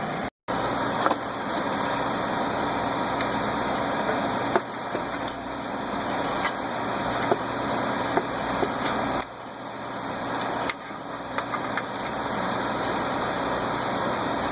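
A steady motor hum with a few sharp clicks scattered through it.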